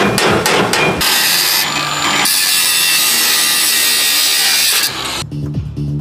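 Angle grinder grinding into a steel rod, a loud steady grind that starts about a second in and stops near the end.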